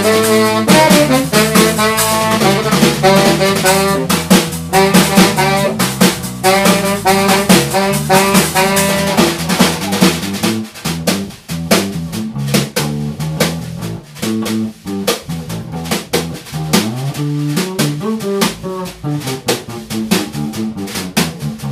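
Live band of saxophone, electric bass guitar and drum kit playing a jazzy tune. The saxophone plays phrases over the bass and drums and drops out about halfway, leaving the drums and bass.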